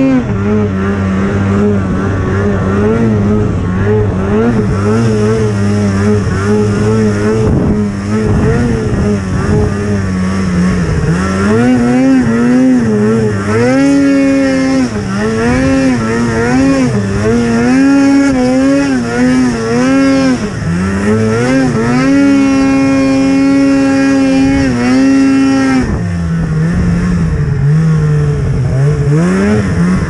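Snowmobile engine running under way through deep snow. It is fairly steady at first, then revs up and down again and again on the throttle from about a third of the way in. It holds high for a few seconds before dropping back lower near the end.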